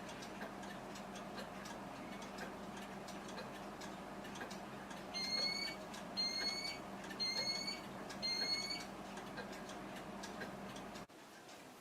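UltraFire UBCO1 carbon monoxide alarm sounding its test alarm: four short, high beeps about a second apart, starting about five seconds in. The beeps are heard from outside the kitchen door, faint over a low steady hum.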